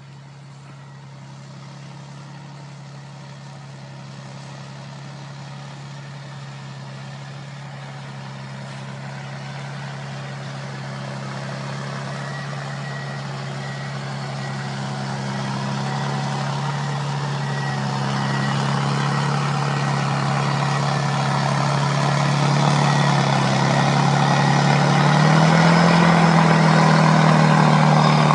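Prinoth Everest snow groomer approaching, its diesel engine running with a steady low drone that grows steadily louder, along with rising track and machine noise. The engine note lifts briefly about 25 seconds in.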